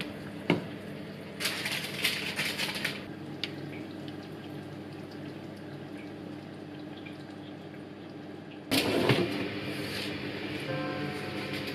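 Kitchen handling noises as naan dough and a parchment-lined baking tray are handled: a sharp click, then a paper-like rustle of about a second and a half, and a louder rustle about nine seconds in. Faint background music comes back near the end.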